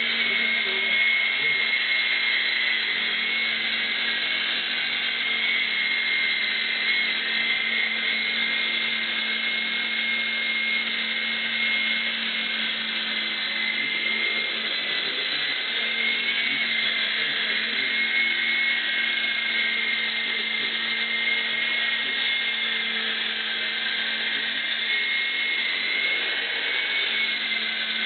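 Three-channel radio-controlled toy helicopter in flight: a steady high motor whine with rotor buzz, wavering slightly in pitch as the throttle is adjusted.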